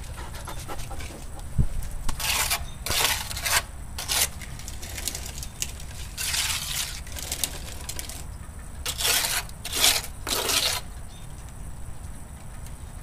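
Green plastic toy shovel scraping and scooping at a shallow puddle on wet asphalt, in a series of short, gritty scrapes and splashes.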